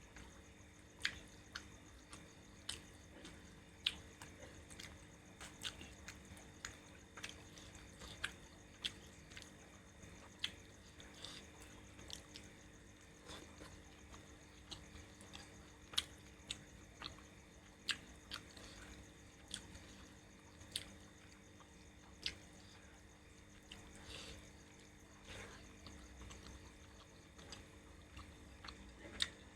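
Close-up eating sounds of a person chewing curry: faint, irregular wet mouth smacks and clicks, about one or two a second, over a low steady hum.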